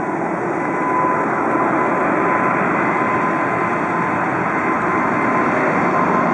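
Boeing 747-8 freighter's four GEnx-2B turbofans at takeoff thrust during the takeoff roll: steady jet noise with a faint steady whine, growing a little louder about a second in as the aircraft closes on the listener.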